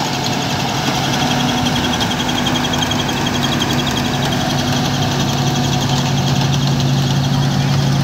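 Combine harvester running while it cuts wheat: a steady engine drone with a fast, even rattle of working machinery over it.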